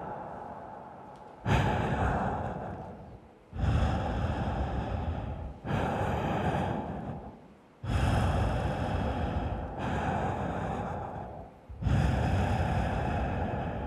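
Heavy, amplified breathing: a series of loud breaths about two seconds apart, each starting suddenly and fading away.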